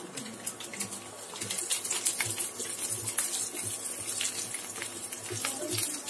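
Garlic cloves, coriander seeds and cumin sizzling and crackling in hot oil in a frying pan, stirred with a wooden spatula.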